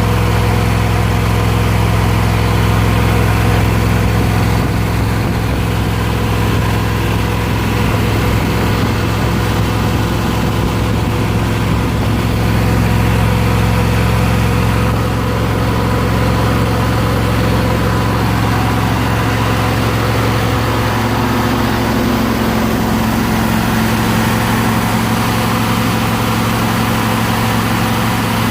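Ford 302 V8 engine of a homemade engine-driven air compressor running steadily at an even speed.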